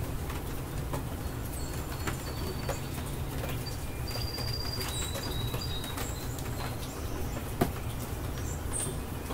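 Small birds chirping in short, high notes over a steady low rumble, with scattered drops ticking; one sharper tick comes late on.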